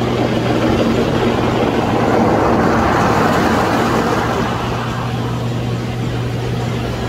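HydroMassage water-jet bed running: the pump hums steadily under the rushing noise of the jets spraying against the underside of the bed's mat, a little quieter from about five seconds in.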